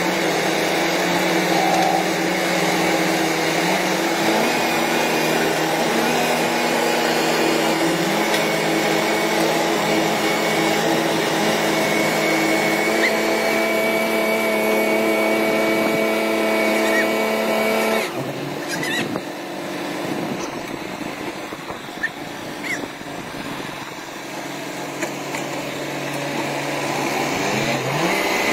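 Farm tractor diesel engines running under heavy load as one tractor pulls another out of deep mud, the engine pitch stepping up and down. About two-thirds of the way through the sound drops sharply, then the engine revs climb again near the end.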